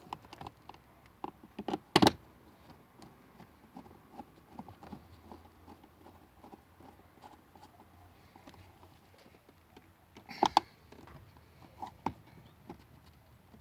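Light clicks and taps of a Nissan Primera P12's plastic interior door trim and a screwdriver being handled, with sharp knocks about two seconds in and again about ten seconds in.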